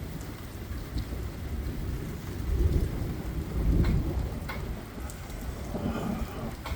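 Thunderstorm: rain falling steadily with thunder rumbling, the rumble swelling twice a little before and after the middle, plus a few sharp ticks.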